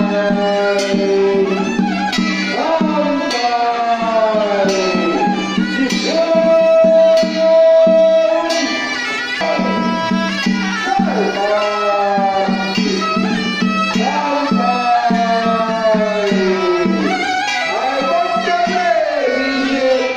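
Traditional ceremonial music: a melody of sliding, wavering notes with some long held tones, over a steady low accompaniment.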